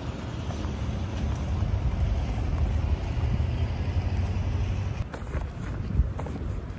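Outdoor urban ambience: a steady low rumble of traffic noise. About five seconds in it drops and gives way to a walker's footsteps, with a sharp tap near the end.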